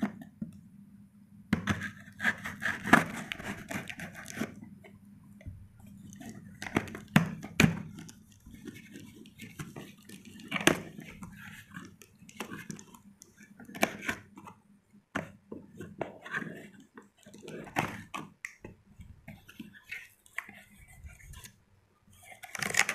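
A knife slitting the packing tape on a corrugated cardboard box, then the flaps being pulled open and folded back: irregular scraping, tearing and rustling of cardboard and tape, with sharp clicks.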